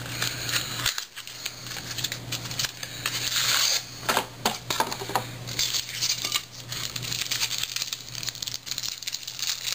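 A cardboard trading-card box being torn open and its contents pulled out: scraping, clicking and tearing of cardboard and plastic wrap, over a steady low hum.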